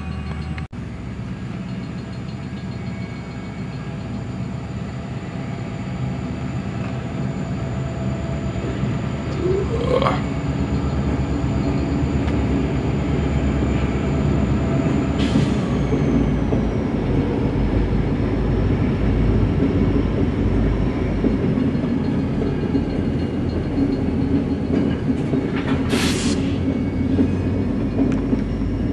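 A diesel freight train's horn blast cuts off about a second in. Then the train, locomotives and covered hopper cars, rolls past with a steady rumble of wheels on rail that grows louder, and a few brief high squeals from the wheels.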